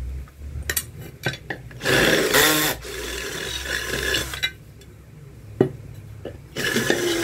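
Cordless drill running with its bit cutting into a metal pressure-cooker lid to enlarge a hole: a loud grinding burst about two seconds in that eases to a lighter cut, a pause with a small knock, then the drill cuts again near the end. Light clicks of the lid and tools being handled at first.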